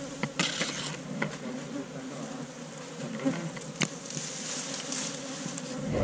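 Honeybees from a wild colony nesting in a tree hollow, buzzing steadily as a swarm, with a few sharp clicks.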